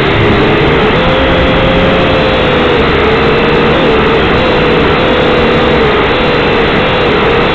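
Syma X5C quadcopter's four small motors and propellers whirring loudly, close up from its onboard camera, with a steady whine that wavers up and down in pitch as the throttle changes in flight.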